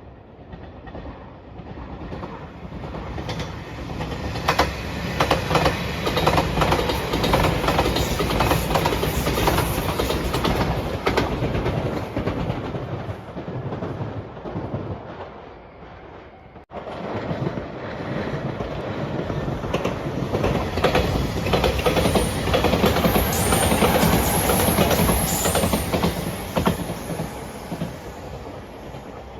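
Five-car limited-express electric train passing close by, its wheels clattering over the rail joints. The sound swells and fades, cuts off abruptly about two-thirds of the way in, then a second passing train swells and fades.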